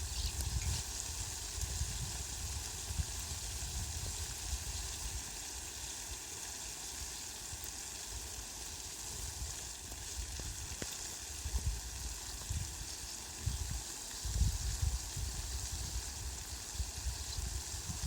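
Heavy rain falling on leafy plants: a steady hiss of drops, with low rumbles that come and go, loudest in the last few seconds.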